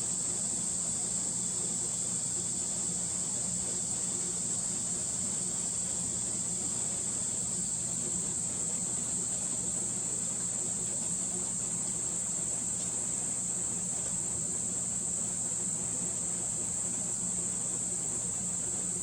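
A steady, high-pitched insect chorus that does not let up, with a faint low hum beneath it.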